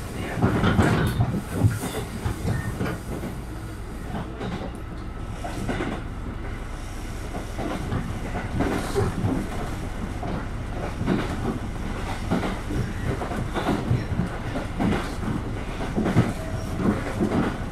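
KiHa 200 series diesel railcar running, heard from inside the carriage: a steady rumble of wheels on rails with irregular clicks of the wheels over rail joints, loudest in a cluster about a second in.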